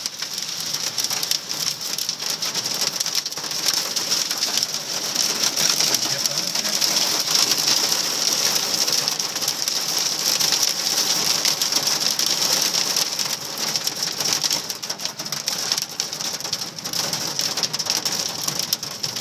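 Hail and heavy rain drumming on a car's roof and windows, heard from inside the cabin: a dense, unbroken clatter of countless small impacts.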